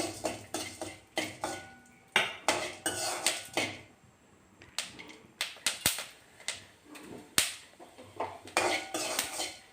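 Spoon stirring and scraping horse gram as it roasts in a kadai: irregular clusters of scrapes and clinks on the pan, with a faint ringing after some strokes.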